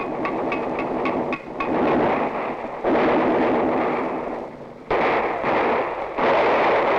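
Battle gunfire: a quick run of sharp shots in the first second or so, then three loud rumbling blasts that start suddenly, about three, five and six seconds in.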